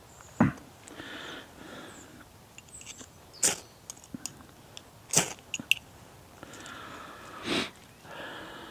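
A few sharp strikes and scrapes while tinder is being lit for a small campfire, with soft breath sounds in between.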